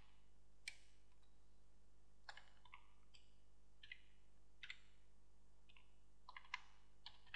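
Faint computer keyboard keystrokes: a dozen or so soft, separate key clicks at an irregular, slow pace as a word is typed.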